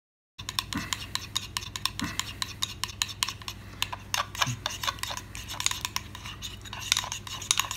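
Metal spoon whisking oil, mustard and vinegar in a small ceramic bowl, clinking and scraping against the bowl in quick continuous strokes as the vinaigrette emulsifies. It starts just after a brief dropout.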